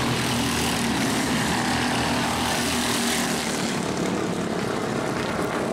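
Mini Cup race cars' engines running in a steady, continuous drone.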